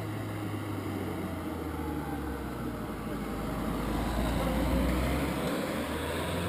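Citroën Berlingo van driving slowly through a hairpin bend, its engine running steadily. It grows louder as it passes about four to five seconds in, then eases off as it moves away.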